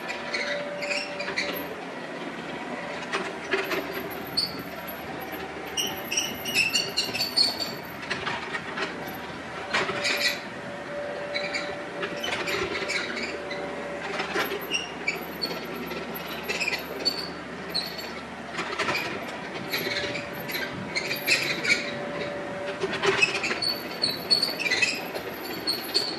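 Kubota KX91-2 mini excavator working: its diesel engine runs steadily under load while the steel running gear clanks and squeaks and a hydraulic whine rises and fades as the boom and bucket move.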